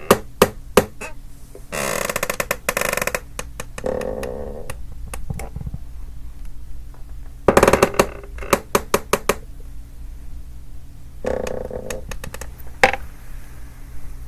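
Wooden chair creaking under shifting weight, in several separate bouts of rapid crackling creaks with short pauses between, plus a few sharp cracks.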